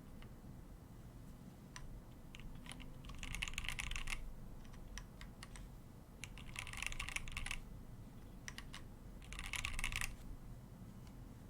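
Akko MOD 005 mechanical keyboard with stock Akko Demon switches, an FR4 plate and Akko Psittacus keycaps being typed on: scattered single keystrokes broken by three quick flurries of typing, about three, six and a half, and nine seconds in.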